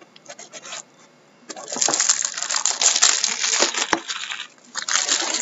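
Plastic shrink wrap on a hockey card box crinkling and crackling as it is torn and pulled off, after a few light taps of the box being handled. There is a dense burst of crackling lasting about three seconds, then another short burst near the end.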